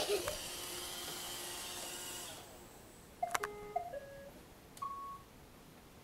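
Roomba robot vacuum running, its motors cutting off abruptly about two and a half seconds in. A moment later it plays a short tune of stepped electronic beeps: the robot has finished its cleaning cycle and stopped by itself.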